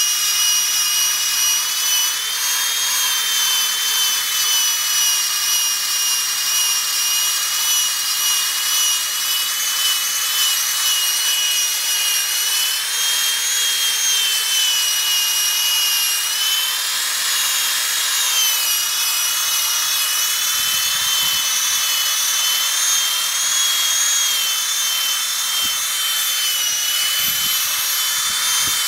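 Drill spinning a Powerball polishing ball, buffing polish into a boat's plastic nameplate. A steady high motor whine whose pitch wavers slightly, dipping and recovering about two-thirds of the way through, over a rubbing hiss.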